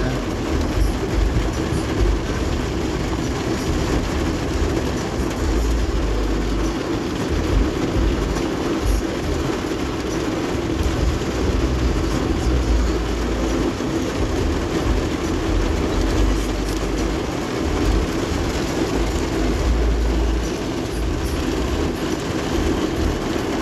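Heavy rain pelting a vehicle's roof and windows, heard from inside the cabin: a steady, dense hiss with an uneven low rumble underneath.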